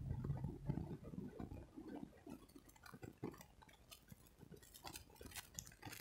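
Faint, scattered small clicks and clinks in a quiet, stationary car cabin.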